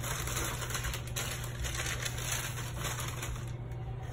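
Light rustling and a run of small clicks from objects being handled, over a low steady hum.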